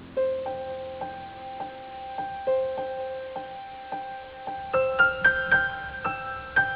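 Background piano music: a gentle melody of repeated single notes, with more notes joining in about five seconds in.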